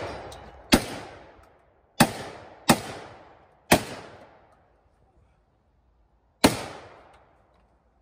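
Five shotgun shots: one under a second in, three more within the next two seconds, then a fifth after a pause of nearly three seconds, each shot trailing off in a short echo.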